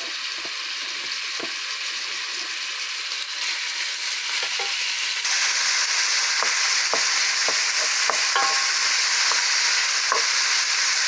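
Ground beef frying in hot oil in a pan: a steady sizzle that grows louder about a third of the way in and again around halfway, with a few light knocks as it is stirred.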